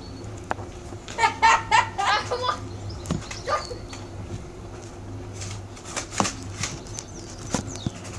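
A few scattered sharp clicks and knocks from a Nerf blaster being handled and worked while it fails to fire, over a steady low hum.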